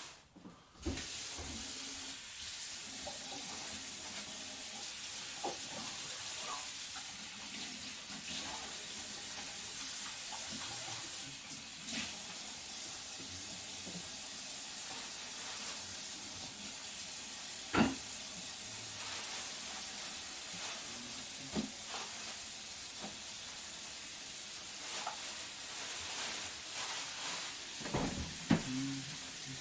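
Kitchen tap turned on about a second in and left running in a steady hiss, with scattered knocks and clicks of things handled at the sink, the loudest just before the middle.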